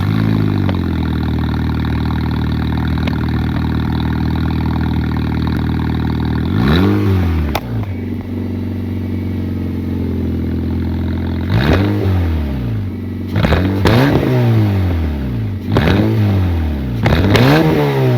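Car engine running open-exhaust with the catalytic converter removed, at a fast idle just after a cold start. From about six seconds in it is revved five times, each rev rising and falling.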